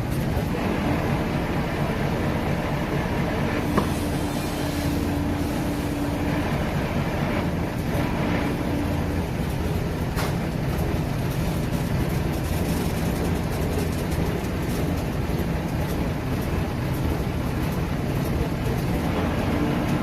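Diesel engine of heavy lifting machinery running steadily, with a held tone over it for the first several seconds and a single knock a little under four seconds in.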